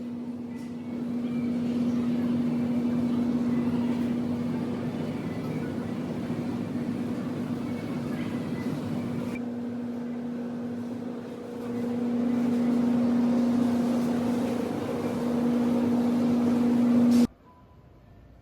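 Steady vehicle running noise: a constant low hum with a rushing background, ending abruptly near the end.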